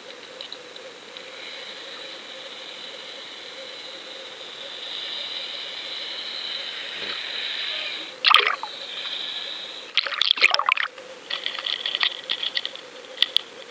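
Water heard through a small camera lowered under the boat on a fishing line: a muffled wash with a steady high whine. Sharp clicks and crackles come about two-thirds of the way in and again near the end.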